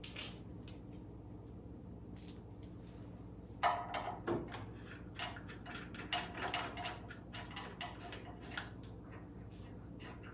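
Metal parts and tools being handled: irregular clinks, knocks and rattles. There is a sharp metallic clink about two seconds in and a busier stretch of clatter from about four to nine seconds.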